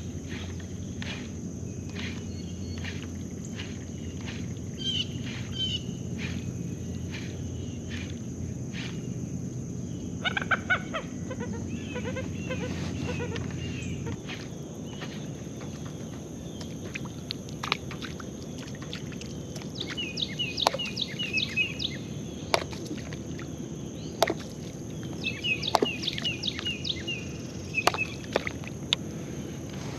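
Outdoor lake ambience: birds chirping in short repeated calls in the second half, over a steady high insect drone. Light regular ticking runs through the first third.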